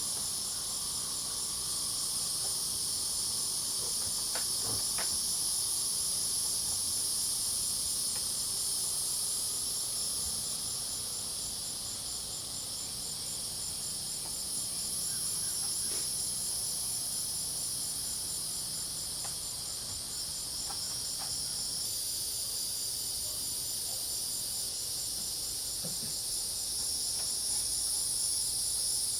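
A steady, high-pitched chorus of crickets and cicadas, with one fast, evenly pulsing trill running through it.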